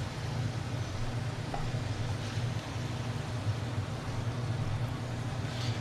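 Hot oil sizzling faintly in a nonstick frying pan as diced potatoes are pushed to one side with a plastic spatula to drain, with a few light scrapes of the spatula over a steady low hum.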